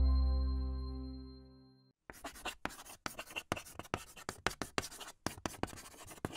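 A ringing chime note fades out over the first couple of seconds. Then, about two seconds in, chalk scratches on a blackboard in a quick run of short strokes as words are written out.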